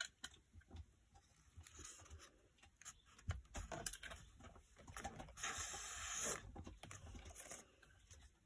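Faint paper and cardstock rustling as tucked cards and pocket inserts in a junk journal are handled, with small clicks and taps and one longer sliding sound about halfway through.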